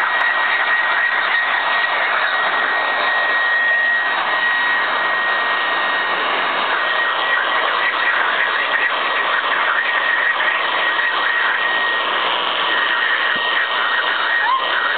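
Electric air-mattress pump running without a break: a constant rush of blown air with a steady high whine from its motor.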